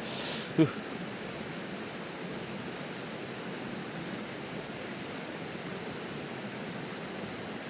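Steady rush of flowing river water. In the first second there is a short hiss and a brief vocal sound.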